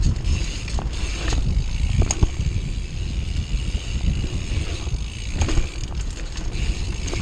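Bicycle riding fast over a bumpy dirt trail: steady wind rumble on the microphone, with the bike's chain and frame rattling and a few sharp knocks as it hits bumps.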